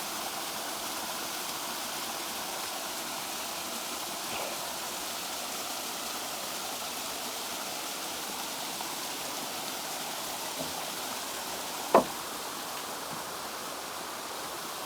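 Steady rush of a stream's running water. A single sharp click or knock sounds near the end.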